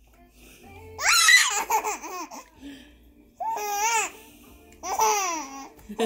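Baby laughing and squealing in four short high-pitched bursts. The first and loudest comes about a second in, and the others follow near the middle and the end.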